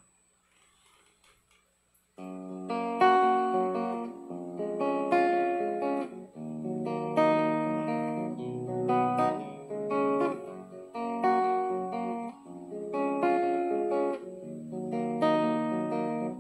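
Acoustic guitar playing a slow instrumental intro of ringing chords, about one a second, starting about two seconds in after near silence.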